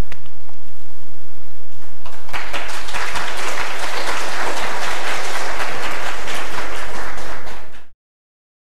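Audience in a lecture hall applauding, the clapping beginning about two seconds in and cut off suddenly near the end. Before it, a low hum and a single knock as papers are handled at the lectern.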